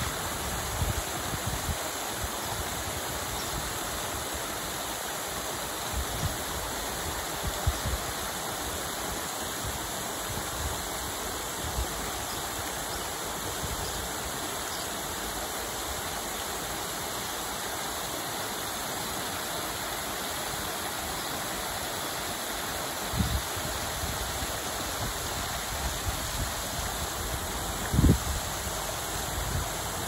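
Small waterfall cascading over rocks into a shallow pool: a steady rush and splash of falling water, with a few brief low thumps, the strongest near the end.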